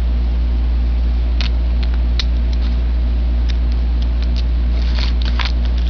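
Steady low electrical hum, with scattered light clicks from about a second and a half in that come more often near the end: the metal and plastic parts of a Galaxy Pegasis W105R2F Beyblade being handled and taken apart.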